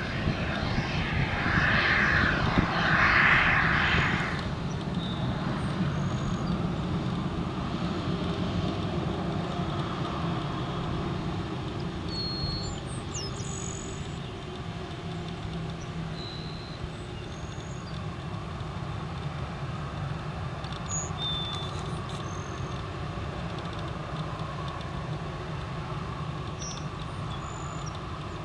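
Airbus A320-214's CFM56 jet engines running at taxi power, a steady low rumble with a broad hiss. The hiss is louder for the first few seconds, then the sound slowly eases off.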